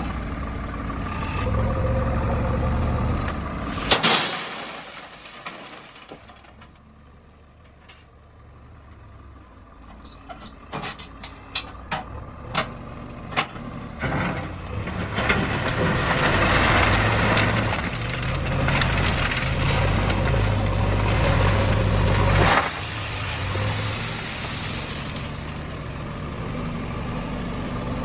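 Heavy diesel machinery engines running and revving, with a sharp bang about four seconds in, then a quieter stretch broken by a series of sharp knocks. The engine then works harder and louder before dropping back abruptly near the end.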